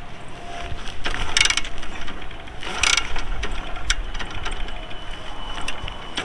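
Bajaj Discover 125 being kick-started: the kick lever is stamped down with a ratcheting rattle as the single-cylinder engine turns over, twice, about a second and a half apart, without the engine catching.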